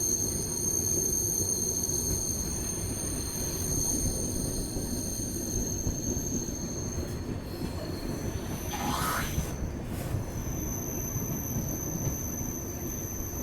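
Running noise of a passenger train heard from aboard the Hirakhand Express: a steady rumble of the wheels on the rails, with a brief wheel squeal about nine seconds in and a fainter one near the end.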